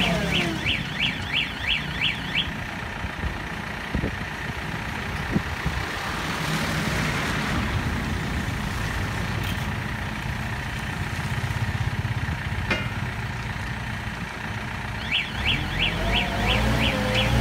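Schwing Stetter SLM 4000 self-loading concrete mixer running on its diesel engine while its front bucket works a gravel pile. An electronic warning beeper sounds in rapid high pips over the first couple of seconds and again near the end. A few sharp knocks come in between.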